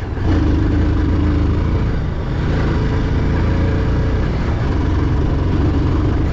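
A vehicle's engine running with a steady low rumble while travelling over a rough track.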